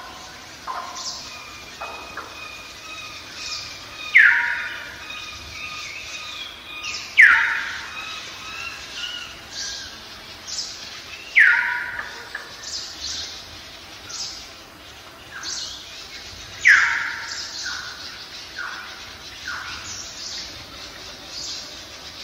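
Several birds singing and chirping, with quick high chirps throughout and a louder call that slides downward in pitch, heard four times a few seconds apart.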